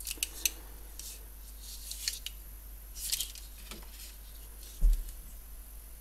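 Light metallic clicks and ticks from steel folding rigid handcuffs being handled, with one dull thump about five seconds in.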